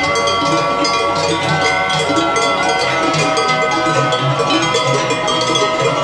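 Several large cowbells on walking cows clanging continuously, their ringing tones overlapping in an uneven rhythm set by the cows' steps.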